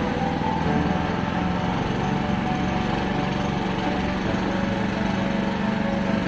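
Small all-terrain vehicle engine running steadily at an even pitch.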